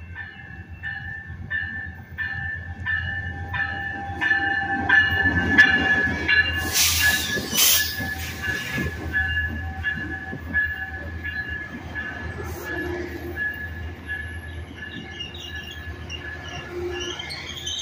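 Metrolink commuter train, its locomotive and bilevel coaches rumbling past the platform, while a grade-crossing bell keeps ringing at about two to three strikes a second. A loud hissing burst sounds about seven seconds in.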